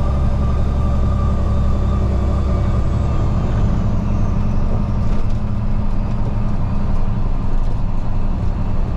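Freightliner truck's diesel engine running steadily, heard from inside the cab as a continuous low drone.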